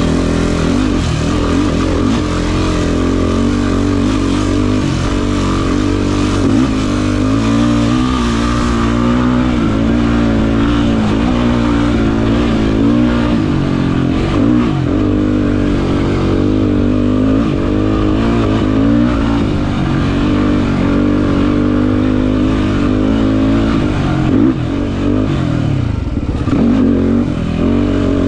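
Race quad's engine revving hard, its pitch rising and falling again and again as the throttle opens and closes.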